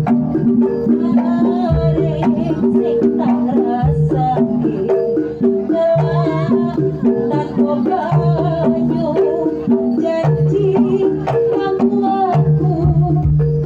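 Live jaranan music from a Javanese gamelan ensemble: kendang hand drums and tuned metal percussion playing a looping pattern that repeats about every two seconds, with a wavering high melody line over it.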